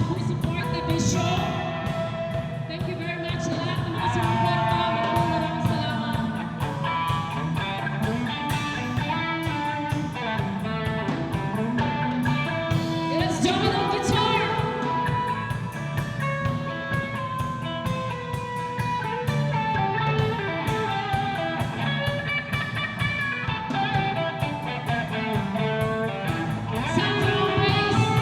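Live rock band music: guitars and drums with a steady beat under a lead vocal.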